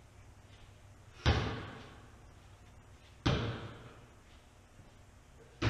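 Three sharp bangs about two seconds apart, each dying away with a short echo.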